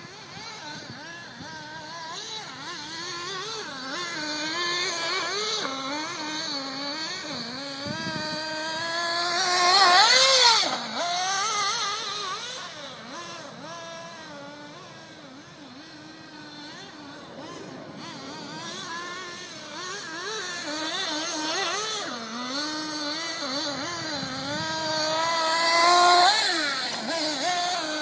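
Radio-controlled buggy's motor revving up and down as it laps a dirt track, its pitch rising and falling with the throttle. It is loudest as it passes close, about ten seconds in and again near the end.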